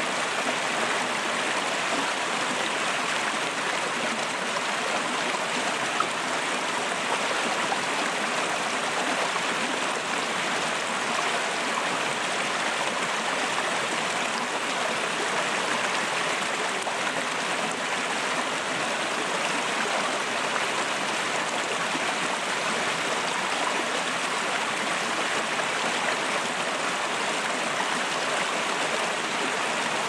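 Mountain stream in winter, water rushing steadily over and between rocks under shelves of ice.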